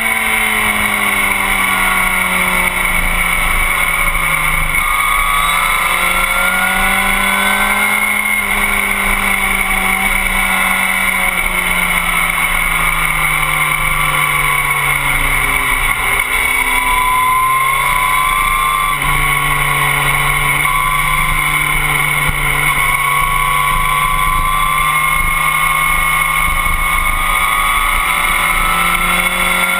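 Sport motorcycle engine running hard around a race track, its pitch drifting slowly down through the middle and climbing again near the end as the throttle is worked through the corners, under a heavy rush of wind noise on the tail-mounted camera.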